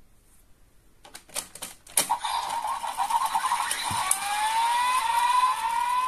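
Plastic toy shuriken of a DX Ninja Raise Buckle being spun: a quick run of ratcheting clicks, a sharp click about two seconds in, then the toy's electronic sound effect plays, a buzzing whirr whose pitch slowly rises.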